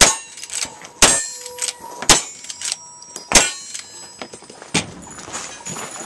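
Lever-action rifle firing four shots roughly a second apart, with a ringing ping from the struck steel targets after some shots, then a lighter clatter near the end.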